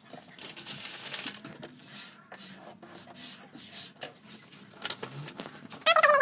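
Wood-grain adhesive vinyl film rustling and scraping as it is pressed and smoothed by hand onto a countertop. Near the end a cat meows once.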